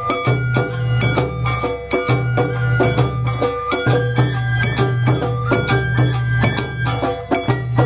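Live Awa odori festival music: percussion struck at a steady pace of about three beats a second under a high melody of held notes that step from one pitch to the next.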